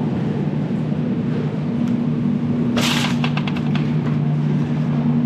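Steady low hum of supermarket refrigeration. About three seconds in there is a brief metallic rattling clatter from a wire shopping cart as a bone-in beef rib roast goes into it.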